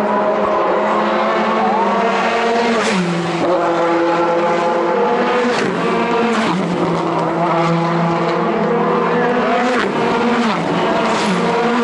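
Touring car race engines running hard towards and past the trackside fence, the pitch holding steady and then stepping down or up a few times as the cars shift gear, with a few sharp cracks from the exhaust.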